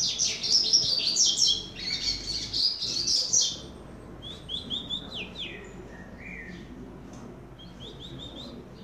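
Young male double-collared seedeater (coleiro) singing: a loud, rapid string of high notes for about three and a half seconds, then a few softer, scattered notes. It is a young bird's song still being refined and not yet fully clean.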